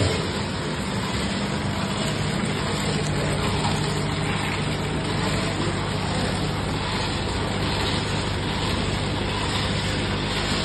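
Peanut pouch packing machine running: the vibratory tray feeder and bucket elevator carrying peanuts give a steady hum under a broad rushing noise.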